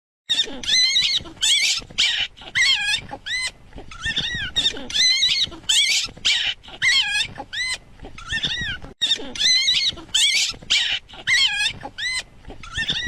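An animal crying over and over in short, high-pitched squeals, about two a second.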